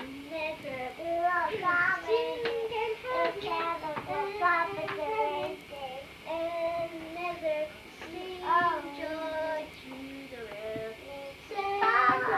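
A young girl singing a Christmas carol on her own, with no accompaniment, in short phrases with brief pauses.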